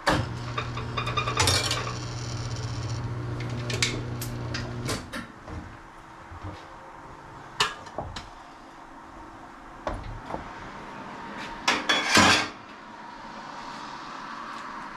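Metal tools clanking and clinking against a motorcycle wheel on a tire-changing machine. A steady motor hum runs for about the first five seconds and then stops. Scattered knocks follow, with a louder clatter a little after ten seconds in.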